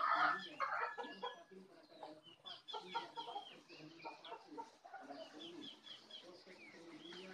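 Chickens clucking, with many short high chirps over the low clucks.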